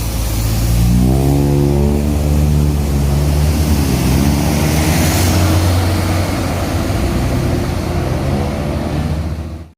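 Bus's diesel engine pulling hard up a steep climb. It revs up about a second in, then runs loud and steady, with a rush of noise around the middle.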